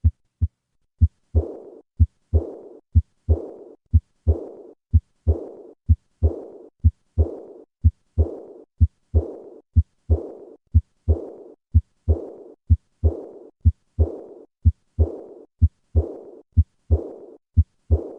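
Heart sounds at a little over one beat a second, each beat a paired lub-dub. From about one and a half seconds in, a high-pitched murmur starts right after each second heart sound and fades away before the next beat. This early diastolic decrescendo murmur is the sign of aortic regurgitation.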